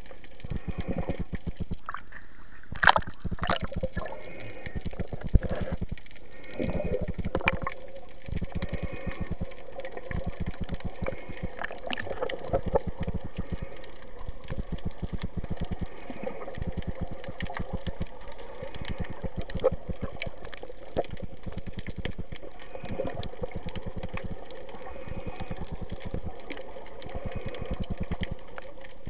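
Underwater water noise heard through a submerged action camera: a muffled rush with dense crackling and clicking, and a few sharper knocks, the loudest about three seconds in.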